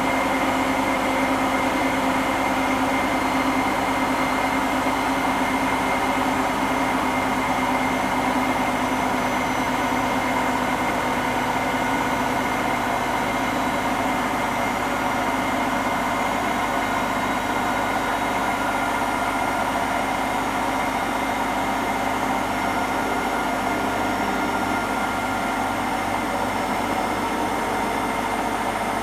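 Hotpoint NSWM 843C inverter-motor washing machine spinning fast with an empty drum: a steady drum rush with constant whining tones of several pitches. The owner suspects the drum bearings may be starting to go.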